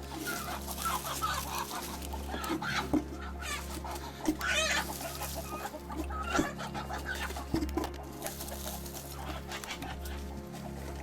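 Chickens clucking, short calls on and off, with a few sharp knocks.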